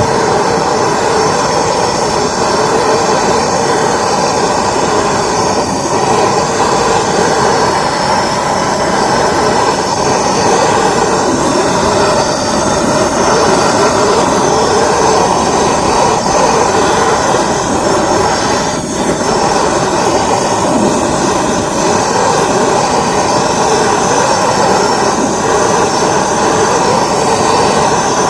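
Steady, loud rushing noise as barbecue charcoal is fired up to get it nice and hot. It holds even with no breaks.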